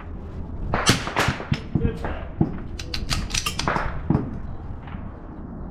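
Several sharp shots from a rimfire match rifle, fired at irregular intervals through the stage, a few of them close together near the middle.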